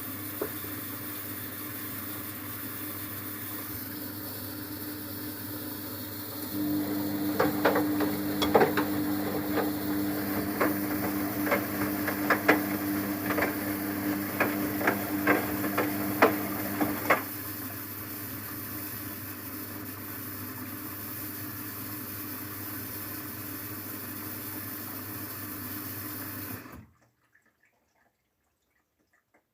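Luxor WM 1042 washing machine on its softener rinse: a steady rush of water, joined about six seconds in by a motor hum with a series of sharp clicks for roughly ten seconds, then the hum stops while the water sound goes on. Near the end all sound cuts off abruptly.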